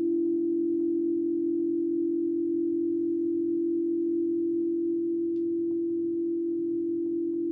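Singing bowl ringing with one steady low tone and a fainter higher overtone, fading slowly.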